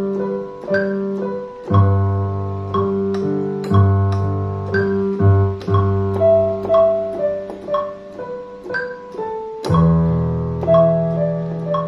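Piano sound played on a MIDI keyboard controller, a raw unmixed take: a slow melody struck about twice a second over held bass notes and chords.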